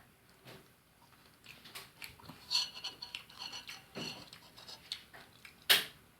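Close-up eating sounds of a person chewing fried fish: irregular wet clicks and crackles, with one sharp, loud click near the end.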